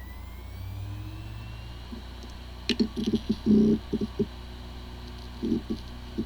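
Hard drive with corrupted disk firmware spinning, a faint rising whine over a steady hum, then a quick cluster of short clicks and chirps about three seconds in and two more brief ones near the end. This is the drive trying to start up while firmware corruption leaves it unreadable.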